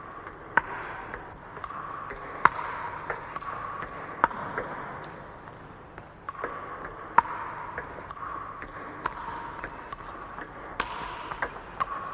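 Table tennis rally: the ball clicking sharply off the bats and the table, one hit every second or so at an uneven rhythm, echoing in a large hall.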